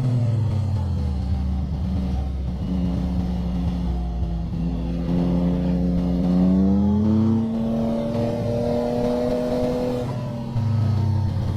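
Motorcycle engine under way on a twisty road: the revs fall in the first second as it slows, then climb steadily from about five seconds in as it accelerates, with an abrupt change in pitch near the end, like a gear shift.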